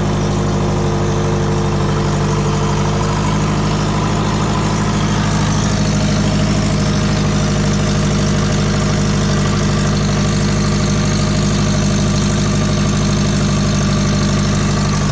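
Subaru EJ20 flat-four engine with a compound turbo setup idling steadily, with an exhaust leak to be heard, which the owner suspects comes from the headers or the 50 mm wastegate.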